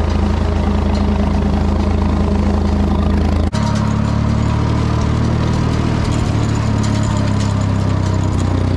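Ford 4000 tractor engine running steadily while working a hay rake, with an abrupt shift in its tone about three and a half seconds in.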